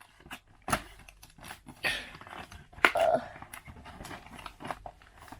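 Cardboard countdown-calendar doors being pushed in and foil card packs pulled out: scattered clicks, taps and crinkling, with a short vocal-like sound about three seconds in.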